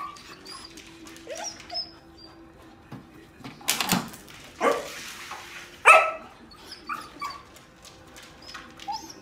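Small dog whining and yipping in short high calls, with a few louder barks in the middle, the loudest about six seconds in.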